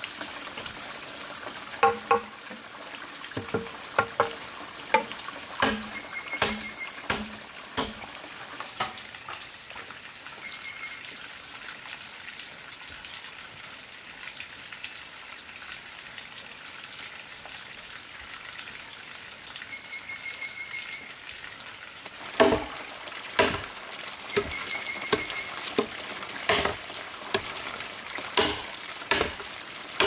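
Knocks of cut bamboo pieces being handled and set down, then a stretch of steady hiss. From about two-thirds of the way in come sharp strikes of a machete chopping into a green bamboo pole, about one a second.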